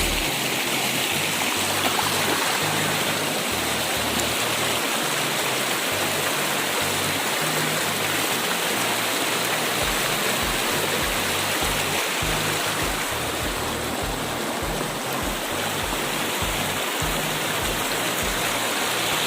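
River water rushing steadily over rocks, an even, continuous flow.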